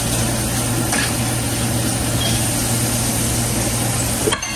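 Steady low hum with an even hiss from the stove, where a pot of water for steaming is heating to the boil.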